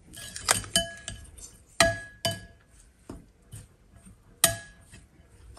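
Metal spoon clinking against a glass mixing bowl while stirring rice with flour: a series of sharp clinks, each ringing briefly, the loudest about two seconds in and again near the end.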